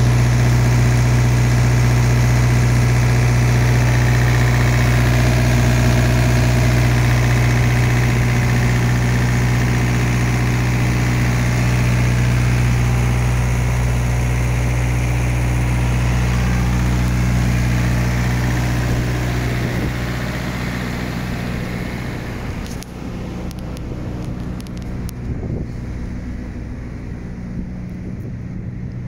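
Thermo King trailer refrigeration unit's small diesel engine running steadily at a constant speed, with a strong low hum. It grows fainter about twenty seconds in.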